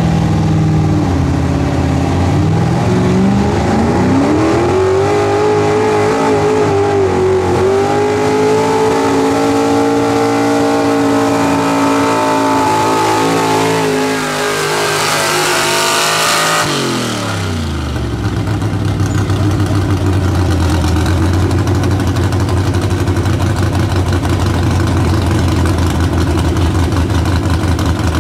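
Enhanced gas 4WD pulling truck's engine at full throttle on a pull. The revs dip, then climb from about two seconds in and hold high, growing louder with a rising hiss. Around seventeen seconds in the throttle is let off and the pitch falls fast into a steady low, pulsing rumble.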